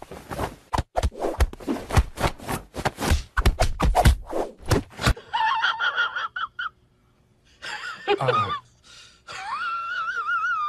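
A fast, irregular clatter of knocks and taps for about five seconds. Then, after an abrupt change, short voiced cries and a high wavering call that rises and falls in pitch near the end.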